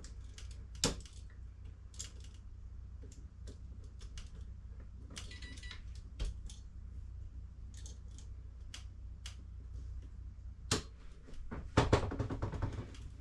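Scattered small clicks, taps and scrapes of hands working wiring and an electrical outlet receptacle, with a sharp click about a second in and the loudest run of clatter near the end, over a steady low hum.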